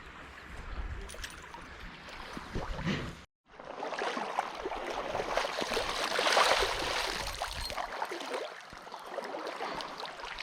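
Stream water running, with many small clicks through it. The sound cuts out completely for a moment about three seconds in, then the water comes back louder, swelling in the middle and easing off near the end.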